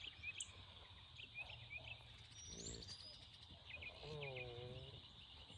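Small birds chirping in short repeated calls over faint outdoor background. About four seconds in comes a single low call lasting about a second.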